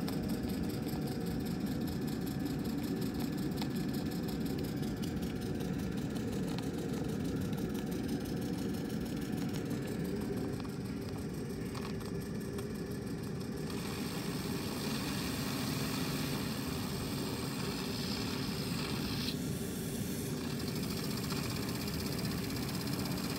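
Small brass MK1 Puffin twin-cylinder model steam engine running steadily and fast, fully run in and running smoothly. A hiss grows louder about fourteen seconds in and eases about five seconds later.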